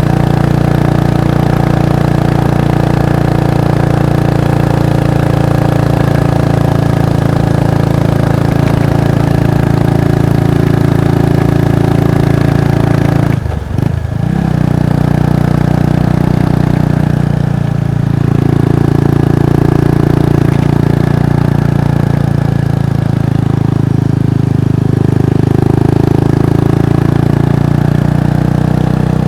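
Kawasaki Estrella's single-cylinder engine and exhaust running steadily under way, with a brief dip and recovery in revs about halfway through, like a gear change.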